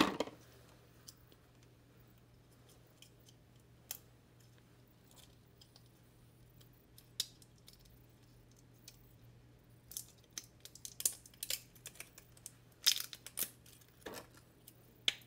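Small plastic dropper bottle of contact lens solution being handled and opened: scattered light clicks and taps, most of them bunched together about ten to fourteen seconds in, over a faint steady hum.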